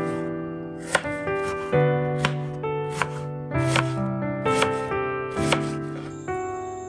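Chef's knife chopping an onion on a bamboo cutting board: sharp knocks, irregularly about every half second, that stop near the end. Background music with held piano-like notes plays throughout.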